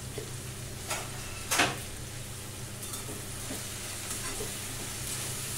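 Metal ladle stirring cut cluster beans in a steel pan of hot spiced oil, scraping the pan a few times, the loudest stroke about a second and a half in, over a soft sizzle of the beans frying. A steady low hum runs underneath.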